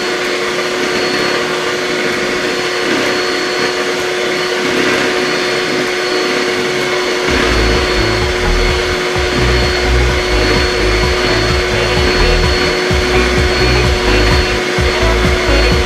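Electric hand mixer running steadily, its beaters whipping double cream, a constant motor whir with a steady hum tone.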